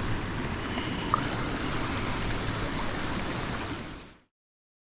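Steady rush of water, with a single sharp click a little over a second in; the sound fades out and stops shortly before the end.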